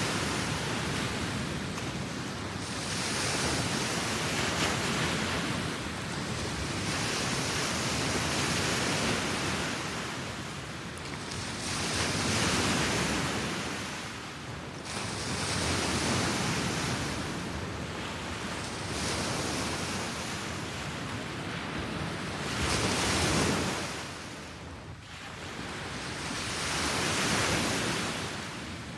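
Small waves breaking and washing up a pebble beach: a steady hiss of surf that swells and fades every few seconds as each wave comes in and drags back over the stones.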